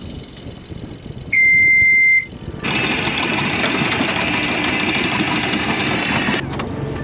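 One long, loud electronic beep at a single steady pitch, lasting about a second. Soon after, a loud steady running noise starts suddenly and cuts off abruptly near the end.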